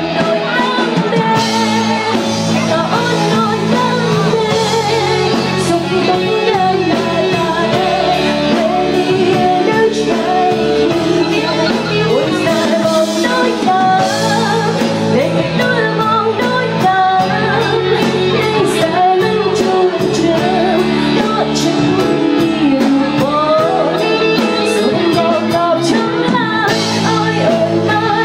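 Live Cambodian pop song: a woman singing over a band with electric guitar.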